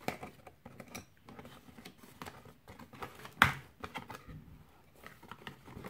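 Small cardboard candle box being opened by hand: fingers tapping and scraping on the card and pulling the lid flap open, a scatter of light clicks and rustles with one louder click about three and a half seconds in.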